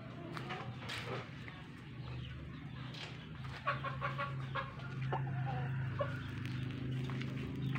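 Game-fowl chickens clucking in many short, broken calls, with a few sharp clicks. A steady low hum runs underneath.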